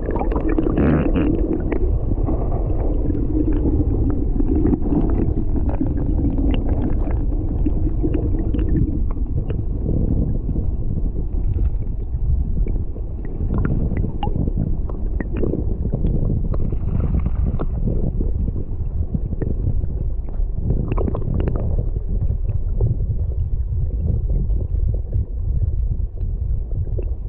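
Stream water heard through an action camera held underwater: a steady, muffled low rushing rumble, with scattered faint clicks and knocks.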